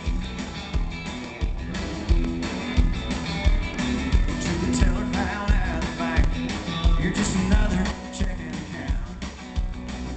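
Live country band playing, heard from the crowd: electric guitar, drums keeping a steady beat, and a lead vocal singing.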